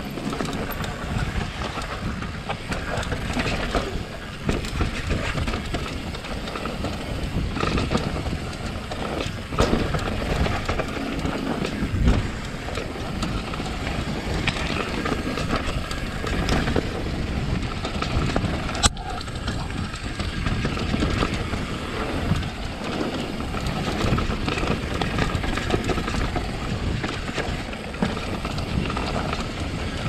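Downhill mountain bike rolling fast over a rocky, rooty dirt trail: a continuous rattle of tyres on dirt and rock, chain and frame, broken by frequent sharp knocks, the sharpest about two-thirds of the way through.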